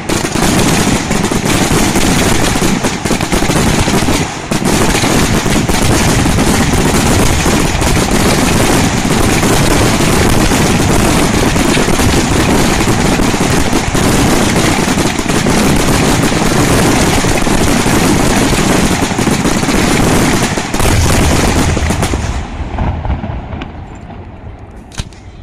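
Aerial fireworks barrage: a dense, continuous rattle of bursting shells and crackling stars, like rapid gunfire. About 22 seconds in it dies away into a fading rumble.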